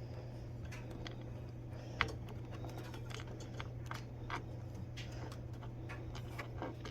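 Scattered light clicks and taps of metal mounting hardware being handled as a screw is fed by hand into a soundbar bracket, with one sharper click about two seconds in, over a steady low hum.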